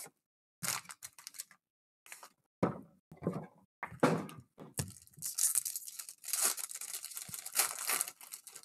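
Foil trading-card packs of Panini Mosaic basketball being handled and set down in short rustles, then torn open from about five seconds in, with a near-continuous crinkling rip of the foil wrappers.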